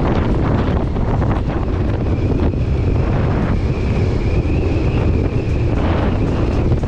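Wind buffeting the microphone of a moving motorcycle, over the low rumble of its engine; a steady high whine runs from about two seconds in until near the end.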